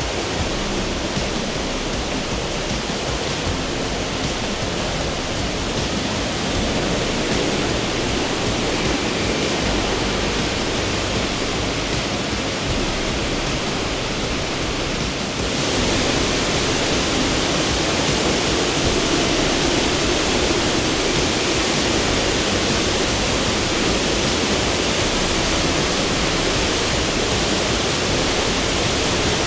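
Waterfall rushing: a steady, dense roar of falling water, which jumps louder and brighter about halfway through.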